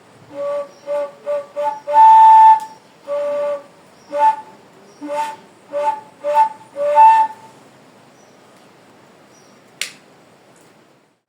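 Bamboo stalks creaking against each other, giving a string of short whistle-like squeaks at two or three steady pitches. They come irregularly and stop after about seven seconds, followed by one sharp click.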